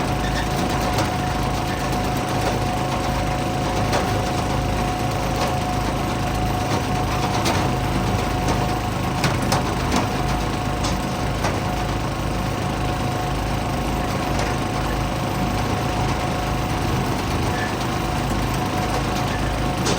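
Small gasoline engine running at a steady, constant speed, with a few sharp knocks scattered through it.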